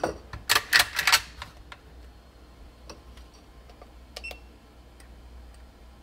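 A quick run of sharp metallic clicks in the first second and a half, then a few faint ticks, as a digital trigger pull gauge is handled and set on the trigger of a cocked Marlin 1895 lever-action rifle.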